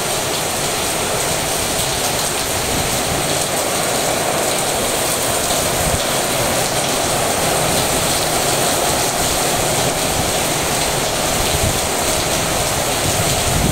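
Rain pouring down, a loud steady hiss with no breaks.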